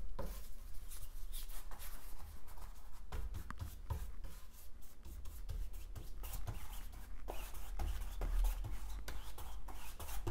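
Paintbrush scrubbing wet paint onto a canvas in many short, irregular scratchy strokes while the base coat is laid down wet-in-wet.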